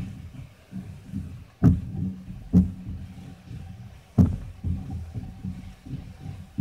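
Spatula stirring onions and chicken in a non-stick pan, giving low, irregular thumps. Three sharper knocks of the spatula against the pan come at about one and a half, two and a half, and four seconds in.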